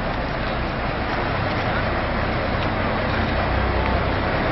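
Coach engine running as the bus pulls off and approaches, its low rumble growing gradually louder.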